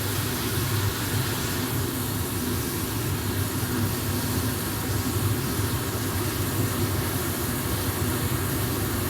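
Minced meat and capsicum sizzling steadily in a frying pan, over a steady low hum.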